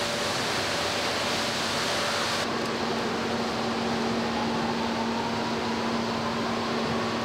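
Steady hiss and hum of car-assembly-plant machinery. The sound changes abruptly about two and a half seconds in to a duller machine hum, with a steady low drone and a faint whine that slowly rises in pitch.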